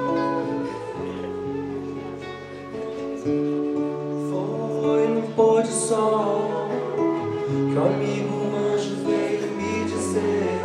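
Live acoustic band music: guitar strummed and plucked over held bass notes, with a singing voice coming in around the middle.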